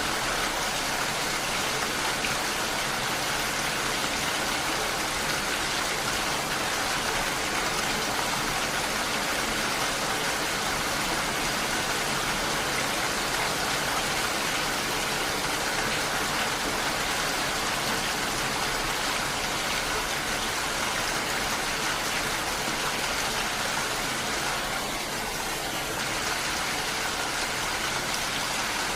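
Heavy rain falling steadily: a dense, even hiss with no separate drops standing out.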